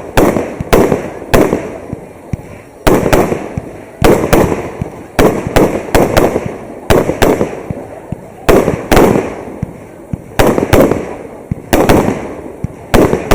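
Fireworks display: aerial shells bursting in rapid succession, one or two loud bangs a second, each bang followed by a rumbling tail that fades before the next.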